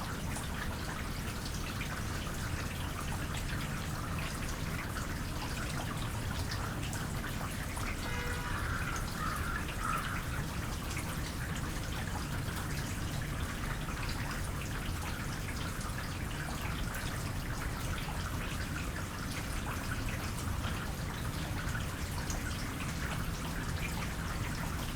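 Light rain falling steadily: a dense patter of small drips and trickling water.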